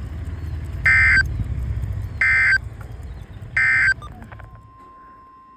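Emergency Alert System end-of-message signal from a NOAA Weather Radio broadcast: three short bursts of warbling digital data tones, each about a third of a second, about 1.4 seconds apart, closing the tornado warning. A low background rumble drops away near the end, and a faint steady high tone starts after it.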